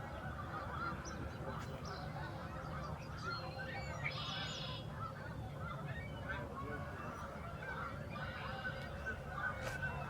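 A huge flock of migrating wild geese calling in a dense, continuous chorus of overlapping honks, with a few higher, clearer calls standing out about four seconds in and again near the end.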